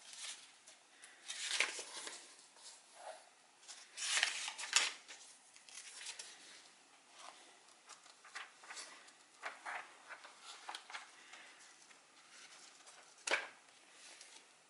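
Paper rustling as the pages of a paperback book are flipped and turned by hand: irregular soft flicks and page riffles, loudest about four to five seconds in, with one sharper flick near the end.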